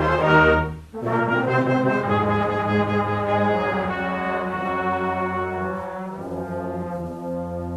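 Band music with sustained brass chords; the sound breaks off briefly about a second in, then holds long chords that slowly grow softer.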